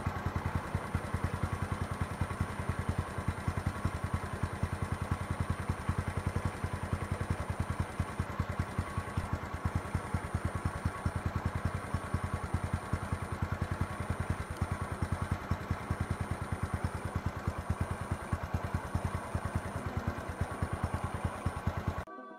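A vehicle engine idling steadily, with a fast, even run of low pulses, and a thin high whine that breaks off and returns several times. It stops abruptly near the end.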